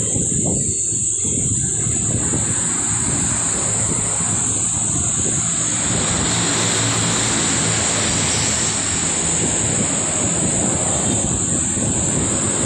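Wind rushing over the microphone of a camera riding along on a moving bicycle: a steady rumbling noise with a constant high hiss above it.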